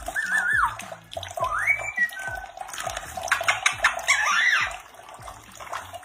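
Tap water running into a bathroom sink while a parakeet bathes in the stream, splashing and flapping its wings, with a few short whistled calls that waver and rise in pitch.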